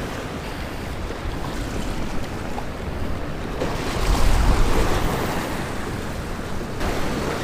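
Surf washing against the rocks of a jetty, with wind on the microphone; it swells louder for a second or so about four seconds in.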